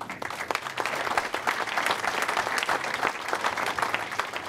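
Audience applauding: many hands clapping, building up over the first second and holding steady.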